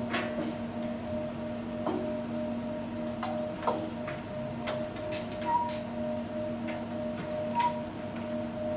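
Steady electrical hum in a workshop with scattered light clicks and taps. Two short beeps come about five and a half and seven and a half seconds in, as keys are pressed on a CAS NT-505A weighing indicator during calibration setup.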